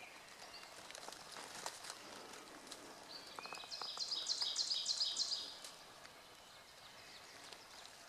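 A small songbird singing a quick run of about ten repeated high notes, starting about three seconds in and lasting some two and a half seconds, over faint woodland ambience.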